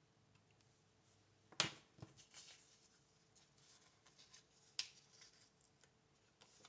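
Faint handling of paper at a desk: a sharp tap about a second and a half in and another near the five-second mark, with light rustling and small clicks between.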